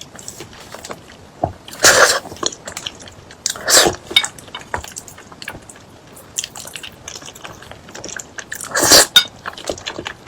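Close-miked eating: chewing and crunching food, with three loud crunchy bites about two, four and nine seconds in.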